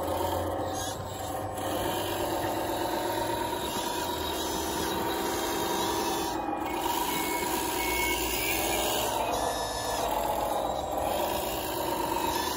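Electric hydraulic pump and drive motors of a 1/14-scale RC Komatsu WA470 wheel loader whining, the pitch rising and falling with load, as its box plow pushes and scrapes through snow.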